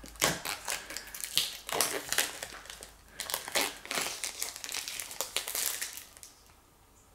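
Clear plastic shrink-wrap crinkling as it is peeled and pulled off a cardboard product box, in a run of irregular crackles that stops about six seconds in.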